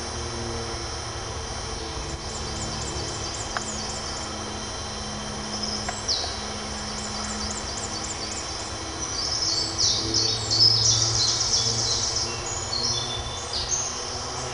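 Woodland birds singing: a run of high repeated chirps, then a louder burst of rapid trilled song about ten seconds in, over a low steady hum.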